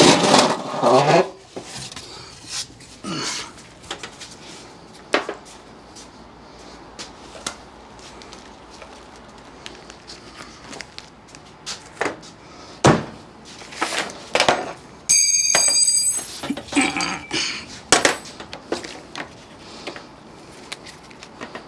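Hand tools and metal parts clinking, knocking and scraping as work goes on around an engine bay, loudest in the first second and a half, with scattered single knocks after. A brief high-pitched steady tone sounds for about a second partway through.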